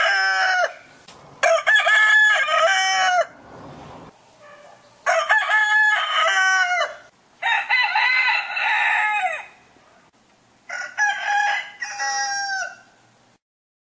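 Rooster crowing, cock-a-doodle-doo after cock-a-doodle-doo: about four full crows, each roughly two seconds long, a second or two apart.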